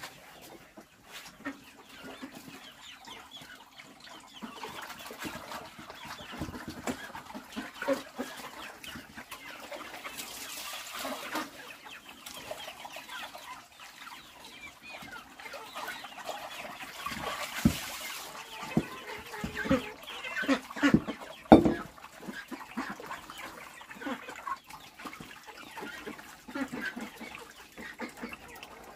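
Chickens clucking steadily, with scattered short calls and a few sharp knocks, the loudest about three-quarters of the way through.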